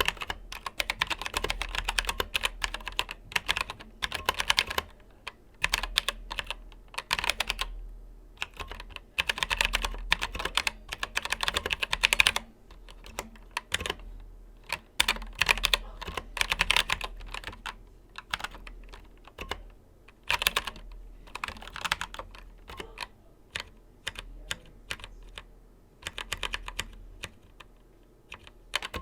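Keychron K8 mechanical keyboard with brown switches being typed on: quick runs of keystrokes clacking, broken by short pauses.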